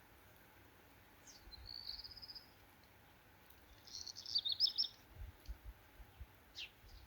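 A small songbird singing two short, high-pitched phrases: a trill about a second and a half in, then a quick run of falling notes about four seconds in.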